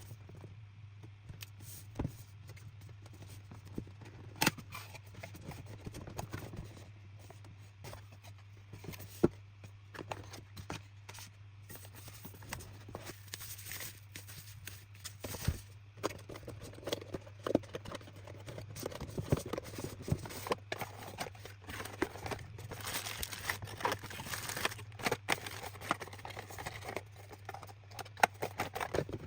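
Packaging being opened and handled: cardboard and plastic scraping, tearing and rustling, with scattered sharp clicks and knocks, over a steady low electrical hum.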